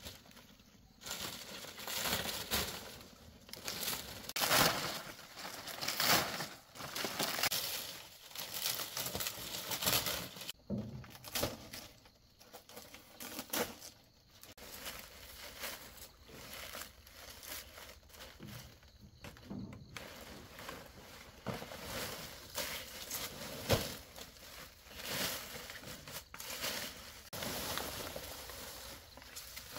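Palm fronds rustling and crackling in irregular bursts as they are handled and laid into a palm-leaf thatch.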